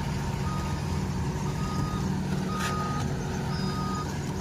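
Reverse alarm on an Ajax Argo 4300 self-loading concrete mixer beeping about once a second, each beep about half a second long, over its diesel engine running steadily as it is driven in reverse. A brief sharp click sounds about two and a half seconds in.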